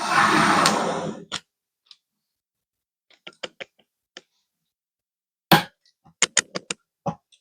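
Computer parts being handled during a PC build: a rustling, sliding noise for about a second, then a series of sharp clicks and taps as pieces are fitted and snapped into place.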